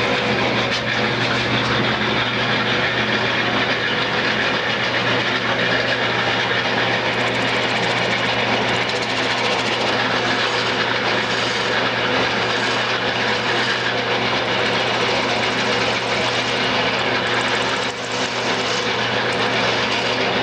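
Wood lathe running steadily while a spindle gouge cuts into the spinning cherry-and-maple spindle, working it down to a point to part it off.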